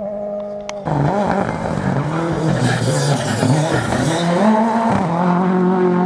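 Rally car engine running hard. About a second in, a steady held note gives way to revs that rise and fall sharply again and again, as with gear changes and lifting off, with a hiss of tyre noise over the engine in the middle.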